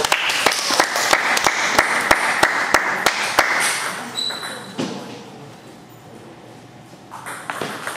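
A quick run of sharp taps, about three a second, for the first three seconds or so, then it quiets down.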